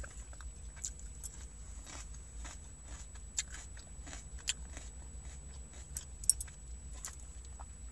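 A person chewing food close to the microphone, mouth closed, with small wet mouth clicks scattered throughout.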